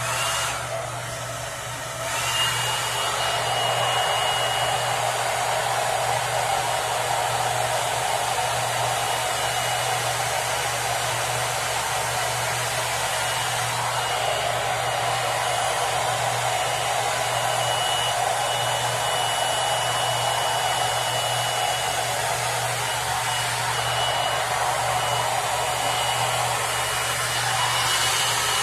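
Hot-air hair dryer brush running steadily as it is pulled through a layer of hair, getting louder about two seconds in. A thin high whine comes and goes over the rushing air.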